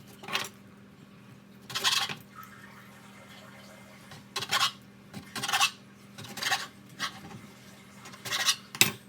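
Kitchen utensils and dough being handled on a work surface: a series of about six short scraping and rubbing noises, roughly a second apart.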